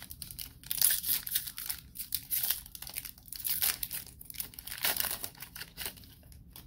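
Foil wrapper of a Panini Playoff football card pack being torn open and crinkled by hand: a continuous run of crinkling and tearing that dies away about six seconds in.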